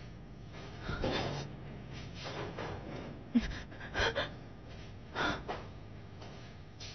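A woman crying quietly: several short, shaky sobbing breaths and sniffles. A short dull thump a little before the middle.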